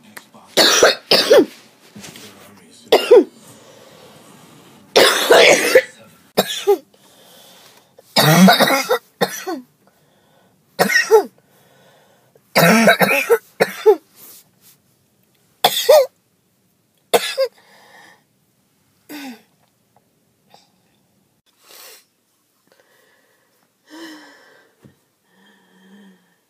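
A woman's hacking coughing fit: clusters of loud coughs, some in quick runs, tailing off about two thirds of the way in into fainter coughs. She puts the fit down to skipping her asthma breathing treatments.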